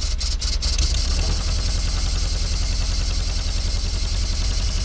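1952 Fordson E83W's 1172 cc side-valve four-cylinder engine running steadily with no choke, soon after its first start in over four years. A few sharp ticks come in the first half-second.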